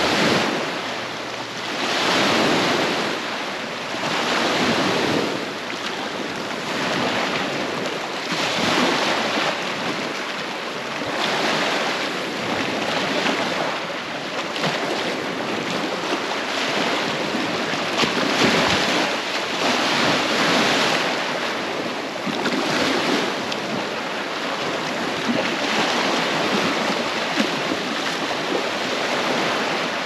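Small waves lapping and washing up on a sand-and-pebble shore, swelling and easing every two to three seconds, with a light breeze buffeting the microphone.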